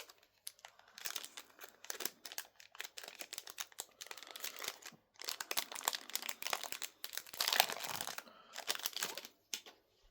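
Plastic wrapping of a trading-card kit crinkling and tearing as it is opened, in irregular crackling bursts with a short pause about halfway through.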